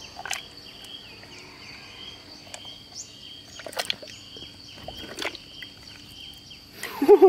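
Steady high insect drone with birds chirping over it, broken by a few short splashes as a die-cast toy pickup truck is pushed through muddy water. A brief voiced exclamation comes near the end.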